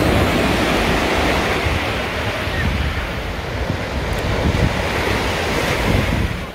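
Small ocean waves breaking and washing up the sand: a steady rush of surf, with wind rumbling on the microphone.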